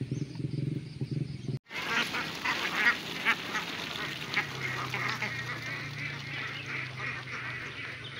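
A large flock of domestic ducks quacking, many calls overlapping in a dense chatter that starts abruptly about a second and a half in. Before that, a low steady hum cuts off.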